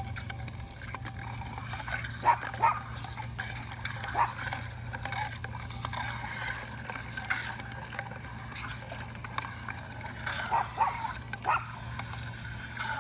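Motorized toy fish swimming in a water-filled glass bowl: water sloshing and splashing over a steady low hum, with a dog giving short whimpers or yips a few times.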